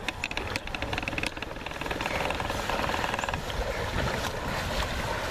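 Paddles splashing and water rushing as a two-person racing canoe is paddled hard past close by, with many short splashy clicks over a steady wash of water noise. A low rumble of wind buffets the microphone underneath.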